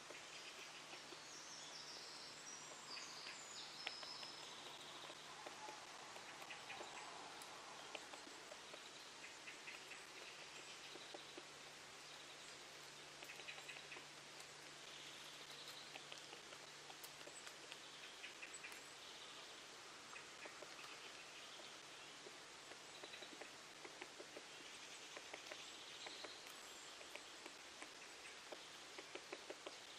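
Faint birdsong: scattered bird chirps and calls over soft background noise, with a faint low hum.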